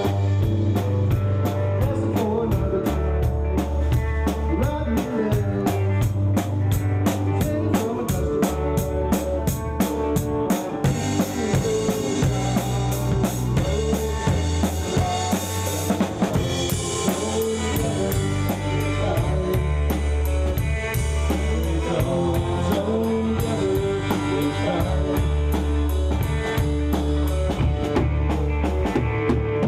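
A rock band playing an instrumental passage: electric bass, drum kit and electric guitar. The cymbals ring out more strongly around the middle.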